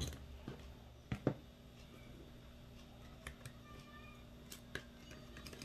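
Light clicks and taps of a Ver3 airsoft gearbox shell and its parts being handled as the two halves are closed together over the gears to test the shim fit, with one sharper click about a second in and a few fainter ones later.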